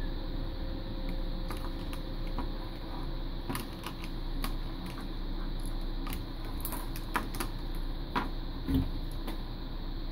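Scattered small plastic clicks and taps as a headphone earcup is handled and opened with a small screwdriver, the loudest click near the end, over a steady background hum.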